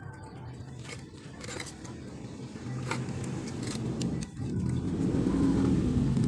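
Light clicks and taps of screws and metal parts being handled as a spin-dryer motor is reassembled by hand. From about halfway, a low rumble of unclear source swells and becomes the loudest sound.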